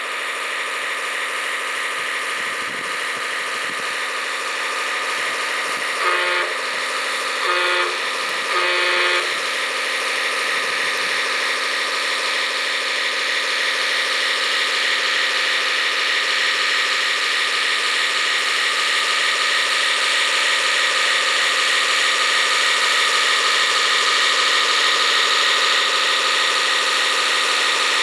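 Radio-controlled tracked dump truck driving, its motor running with a steady whine that grows slightly louder as it comes closer. Three short horn toots sound about six to nine seconds in.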